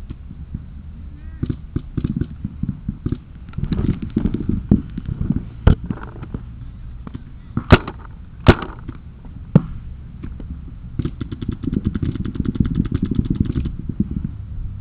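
Paintball markers firing: scattered pops, two very loud sharp shots about eight seconds in, then a fast, evenly spaced string of shots for nearly three seconds near the end. Low rubbing and knocking of the body-worn camera against clothing underneath.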